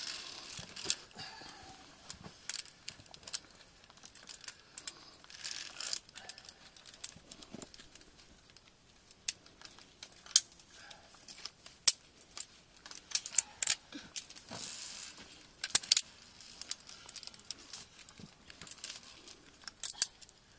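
Via ferrata climbing gear clinking: carabiners and lanyards knocking against the steel safety cable and iron rungs, in scattered sharp metallic clicks with a few louder ones.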